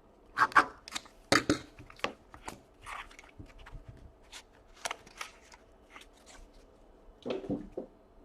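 Trading cards being handled, sliding against each other and against plastic. The sound is a string of short, irregular rustles and clicks, loudest in the first second and a half and again near the end.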